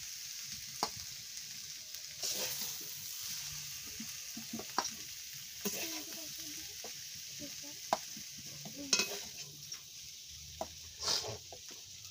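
Metal spatula scraping and knocking against a steel kadai as a cooked dry vegetable curry is scooped out into a steel bowl, with sharp scrapes and clinks every second or two over a steady high hiss.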